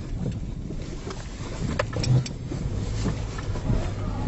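Subaru car driving slowly through a shallow flooded wash crossing: its engine runs under a steady noise of water and tyres, with a few knocks and some wind on the microphone.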